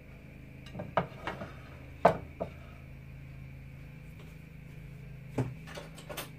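Kitchen utensil knocking and clinking against a frying pan: a few short, sharp knocks in two clusters, the loudest about two seconds in, over a steady low hum.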